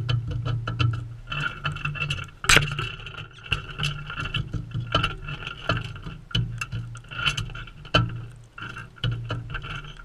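Galahs pecking and cracking seed right at the microphone: rapid, irregular clicks and taps, with one loud knock about two and a half seconds in.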